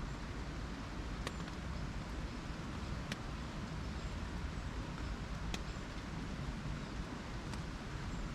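Steady hiss of rain on a Naturehike Cloud Peak 2 tent with a low wind rumble, and four sharp ticks, drops hitting the tent fabric, spaced about two seconds apart.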